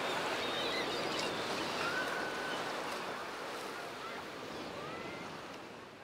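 Sea surf washing on a beach, a steady rush of waves, with a few faint, brief high calls over it; it fades out over the second half.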